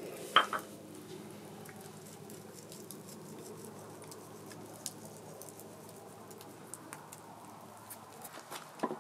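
A sharp clink of a cooking utensil against a dish or pan about half a second in, then faint scattered ticks and light handling noise over a steady low hiss.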